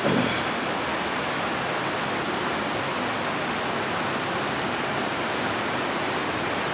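Rain hitting the roof hard, heard as a steady, even hiss, with a short louder sound right at the start.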